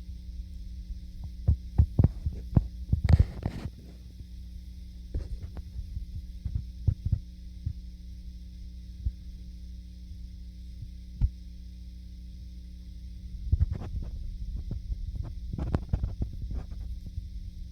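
Dull, irregular thuds and knocks from footsteps and knocking on the floor of the apartment above, heard through the ceiling, in clusters near the start and near the end with a lone thud past the middle. A steady electrical hum runs underneath, and a short brushing noise comes about three seconds in.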